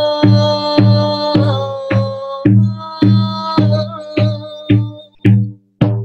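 Frame drum struck steadily with a padded beater, a little under two deep beats a second, under a woman's wordless chanting voice. The voice drops away near the end, leaving a couple of lone drum beats and a brief pause.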